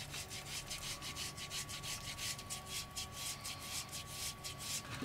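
Cooled boiled potato being grated on a small fine hand grater: quick, even rasping strokes, several a second.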